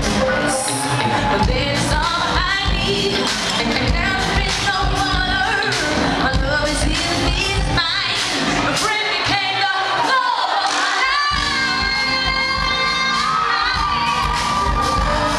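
Live band with a female lead singer performing; the bass and drums drop out for a couple of seconds about ten seconds in, then return under long held sung notes.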